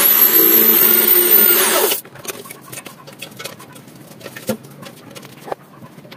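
Handheld power tool running hard with a high motor whine that climbs slightly and then drops as it stops about two seconds in. Faint clicks and taps follow.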